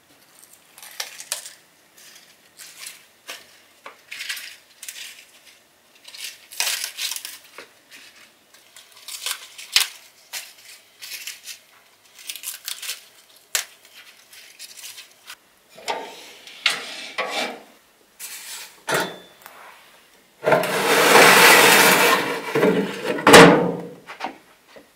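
Crisp lettuce leaves rustling and snapping in short bursts as they are pulled apart by hand. Near the end, the loudest part: a metal baking tray scraping out of a countertop oven for about three seconds, ending in a sharp knock.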